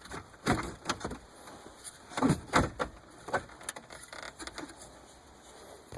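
Factory car radio being worked loose and slid out of its dash opening: a series of irregular plastic and metal knocks and scrapes, the loudest cluster a little past two seconds in.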